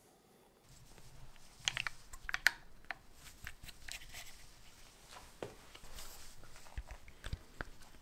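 Plastic handling noise: scattered clicks and brief rubbing as a UYIGAO UA-961 sound level meter is fitted into a 3D-printed clip holder on a tripod head. The sharpest click comes about two and a half seconds in.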